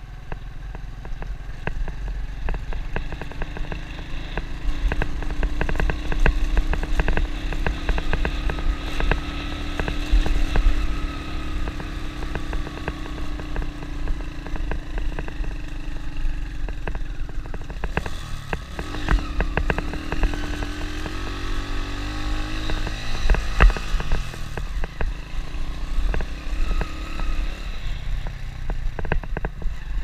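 Motorbike engine running while riding over a rough dirt road, with clatter and knocks from the bumpy surface. About two-thirds of the way through the engine note drops, then climbs again as the bike picks up speed.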